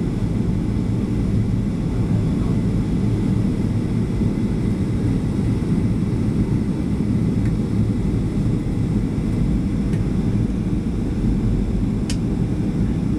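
Steady low roar inside the cabin of a Boeing 737 on approach to land, the jet engines and rushing air heard from a window seat. A brief click sounds near the end.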